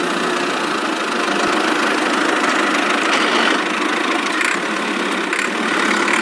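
A small motor running steadily.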